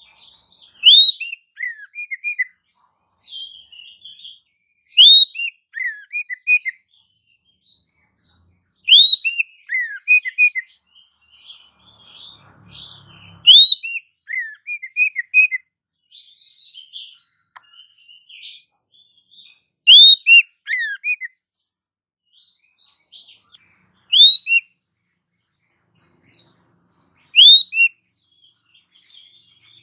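Small-bird calls from a bird-luring (pikat) track: a loud, sharp upswept chirp every four seconds or so, each followed by a short run of lower falling notes, with thinner high chips and twitters in between.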